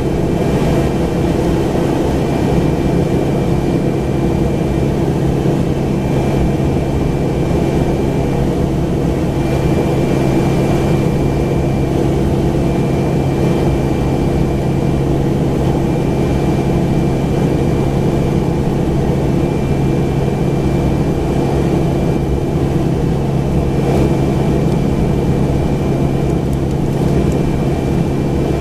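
Pilatus PC-12's single Pratt & Whitney PT6A turboprop engine running at a steady idle, heard from inside the cabin, with a low even drone and a fainter high whine that comes and goes.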